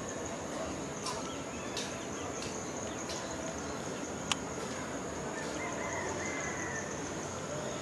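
Steady high-pitched insect drone, like crickets, over outdoor background noise, with a few sharp clicks, the sharpest about four seconds in, and faint bird chirps near the end.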